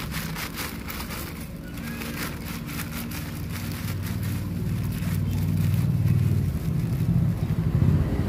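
A motor vehicle engine runs steadily nearby and grows louder over the last few seconds. In the first couple of seconds there is crinkling of a plastic bag and dry cat kibble pattering onto concrete.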